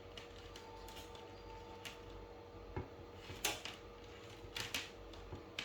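Faint, scattered clicks and rustles of hands handling cable wires at a gas detector's terminal connections, a few separate taps, the loudest a little past halfway.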